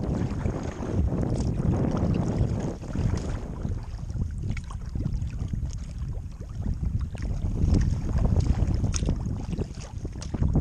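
Gusty wind rumbling on the microphone, rising and falling, with choppy lake water lapping and splashing against a kayak's hull in many small, irregular splashes.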